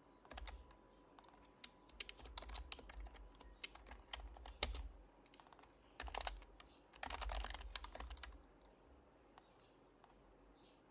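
Typing on an HHKB Professional HYBRID Type-S keyboard with silenced Topre electrostatic-capacitive keys, in irregular bursts of keystrokes that stop about eight seconds in.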